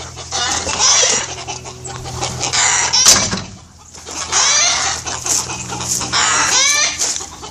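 Chickens clucking and squawking, mixed with rustling and handling noise from a phone being carried quickly. There is a sharp knock about three seconds in.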